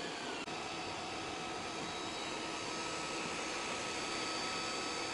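Creality CR-10S 3D printer running mid-print: a steady whir of cooling fans with thin whining tones from the stepper motors over it, the whine changing pitch about half a second in.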